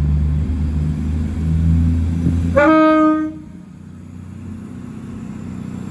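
Class 220 Voyager diesel multiple unit's engines running as it pulls away, then one short horn note from the driver about two and a half seconds in. After the horn the engine sound drops away quickly.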